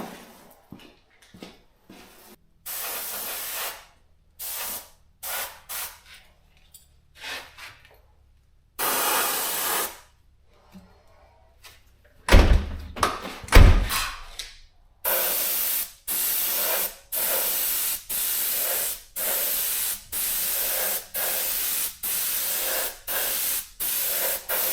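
Short, repeated hissing bursts of a coating being sprayed onto bodywork, each about half to three-quarters of a second long, coming about once a second in the second half. A couple of loud low thuds come about halfway through.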